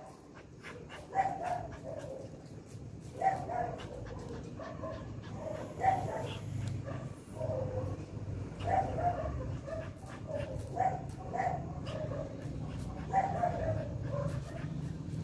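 A dog giving short, repeated calls every second or two, over a low steady hum that comes in about a third of the way through.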